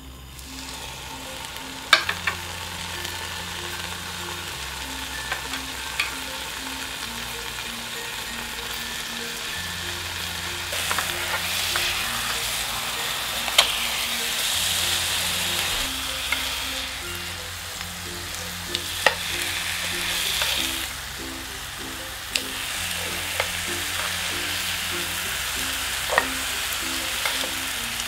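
Marinated beef short ribs (LA galbi) sizzling as they fry in a nonstick frying pan. The sizzle swells in the middle and eases again. Several sharp clicks come from the metal tongs knocking the pan as pieces are laid in.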